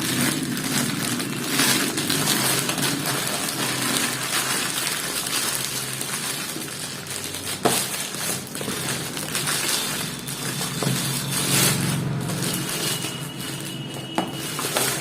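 Plastic wrapping being pulled and crinkled off a new electric water heater: continuous rustling and crackling, with a few sharp clicks.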